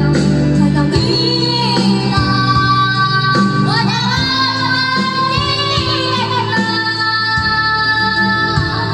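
A young girl singing into a handheld karaoke microphone over a backing track, holding long notes.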